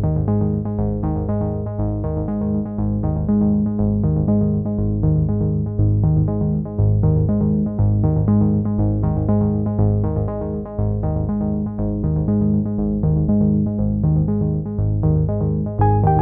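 Background instrumental music: a synthesizer-and-keyboard tune with a steady pulse of short repeated notes over a low bass line.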